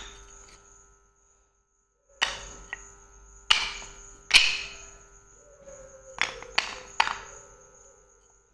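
Flat white slate blocks knocking against each other in a pile as they are lifted and dropped: sharp clacks, one at the start and about seven more from two to seven seconds in, each ringing briefly. A faint steady high-pitched tone runs underneath.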